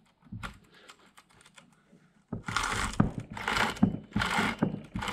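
Saw chain of a Ryobi 14-inch chainsaw being pulled by hand along the bar to check its tension after adjustment, the links rattling and clicking over the bar. It starts with a few light clicks, then from about halfway through come about four quick rasping pulls, evenly spaced.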